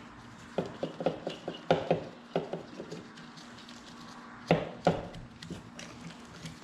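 Metal hand tools and engine hardware knocking and clinking while the cylinder nuts of a Yamaha YZ85 two-stroke engine are undone. There is a quick run of knocks about half a second in, then two louder knocks about four and a half seconds in.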